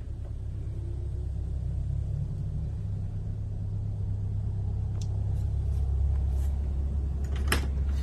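A steady low rumble that grows slightly louder, with a few faint ticks and a sharp click about seven and a half seconds in.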